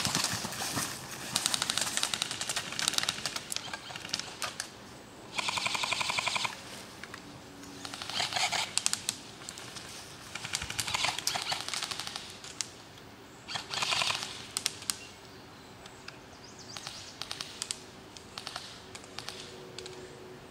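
Airsoft electric guns (AEGs) firing full-auto in short bursts: rapid, even rattling strings a second or two long, coming every couple of seconds from more than one gun.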